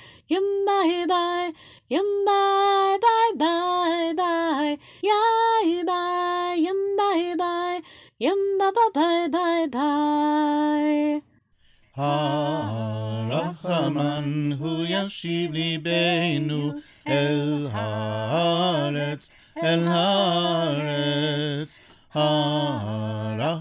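Unaccompanied singing of a Hebrew prayer-song: a high voice sings alone for about eleven seconds, then, after a brief pause, a lower voice takes up the melody.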